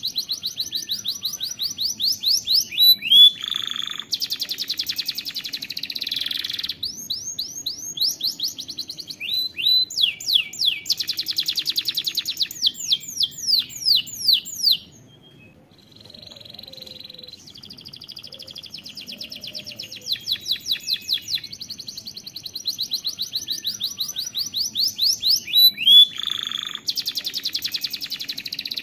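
Domestic canary singing a long song of rapid trills and rolls of repeated high notes, breaking off briefly about halfway through.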